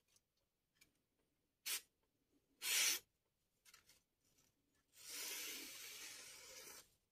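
Freshly sharpened Kai Shun Gold chef knife slicing through a glossy magazine page held in the air, a test of the edge's sharpness: a brief swish just before two seconds in, a louder one near three seconds, and a longer, softer slicing hiss from about five seconds to nearly seven.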